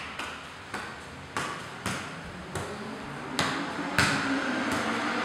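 A football kept up with bare feet: a run of about eight sharp touches spaced half a second to a second apart, each with a short room echo, the loudest about four seconds in.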